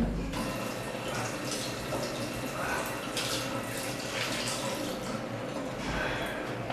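Water running from a tap into a washbasin, with a few louder splashes as hands wash in it.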